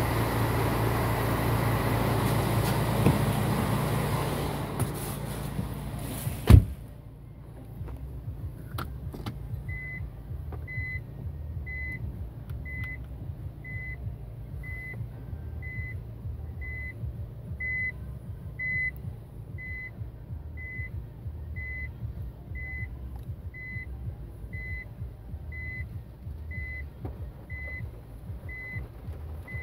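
Nissan Fuga GT 3.5's V6 idling, heard from beside the car, then a car door shuts with a loud thud about six and a half seconds in. Inside the cabin the idle is muffled, and from about ten seconds in the reverse-gear warning beep sounds about once a second, a single high tone, showing the car is in reverse.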